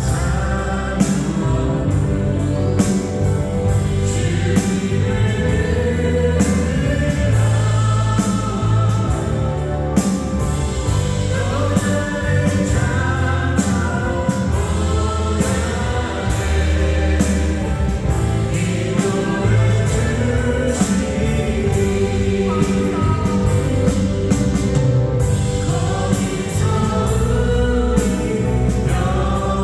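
Christian praise song being sung, with several voices over instrumental accompaniment that keeps a steady beat.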